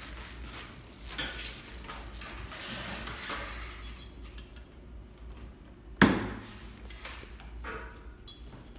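Handling sounds at a serger: rustling and light clunks, with one sharp knock about six seconds in and a smaller click near the end.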